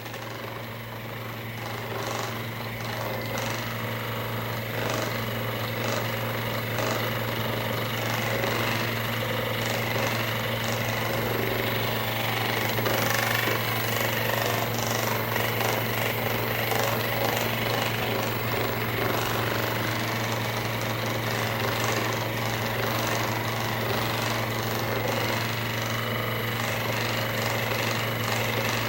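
Handheld electric percussion massager (massage gun) running: a steady motor buzz with rapid hammering pulses, growing louder over the first few seconds and then holding steady.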